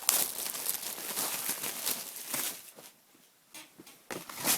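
Plastic packaging rustling and crinkling as a t-shirt is unwrapped, dying down after about two and a half seconds to a few brief handling sounds.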